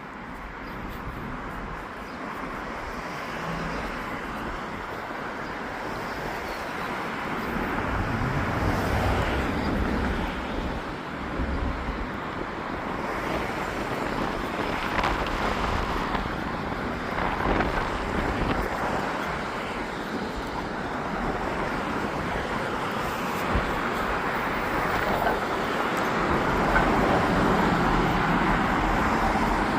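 Road traffic: a steady rush of passing vehicles, with low engine rumble swelling now and then and the overall noise slowly growing louder.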